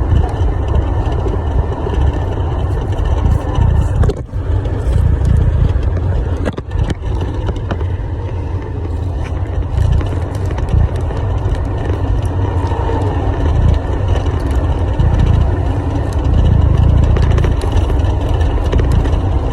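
A loud, steady low rumble, briefly dipping about four seconds in and again near seven seconds.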